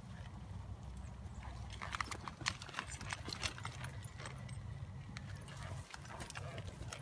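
Hoofbeats of a purebred Arabian horse loping and turning on soft, ploughed arena dirt, with a cluster of sharper hoof strikes about two to three and a half seconds in, over a low steady rumble.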